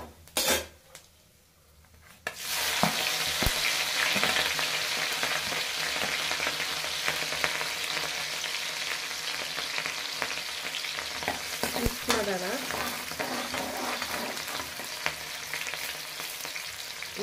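Chopped green chillies dropped into hot oil with cumin seeds and curry leaves in a metal kadai, starting a loud, steady sizzle about two seconds in. A spoon stirs with the odd click against the pan.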